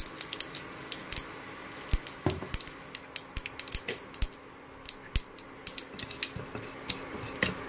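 Mustard seeds popping in hot coconut oil in a stainless steel pot, sharp irregular pops several times a second: the oil is hot enough and the seeds have begun to splutter, the tempering stage of a curry.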